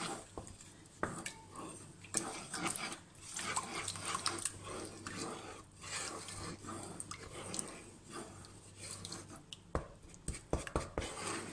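Wooden spatula stirring flour into a wet milk-and-yeast mixture in a bowl, mixing bread dough: irregular scraping and wet swishing, with a few sharper knocks against the bowl near the end.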